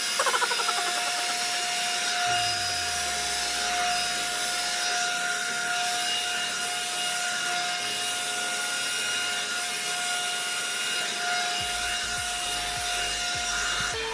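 Hot air brush hair dryer running steadily, its fan blowing with a constant high motor whine as the brush is drawn through hair.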